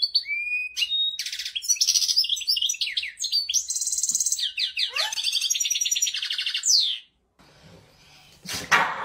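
European goldfinch singing: a fast, continuous run of twittering chirps, trills and whistled notes that stops abruptly about seven seconds in. Near the end comes a short, loud noise.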